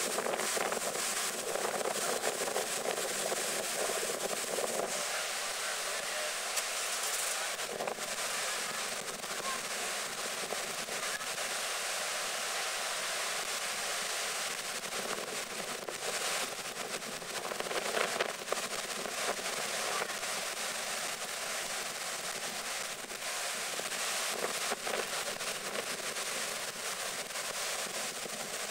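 Storm surf breaking and washing up the shore in a steady, dense rush, with wind gusting on the microphone.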